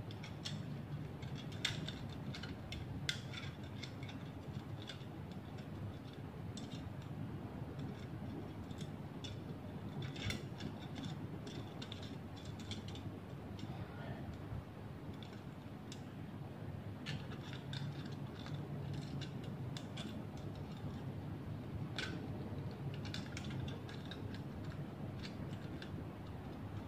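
Thin metal strips cut from a used drink can crinkling and clicking as they are bent and folded by hand, in irregular clusters of small clicks over a steady low hum.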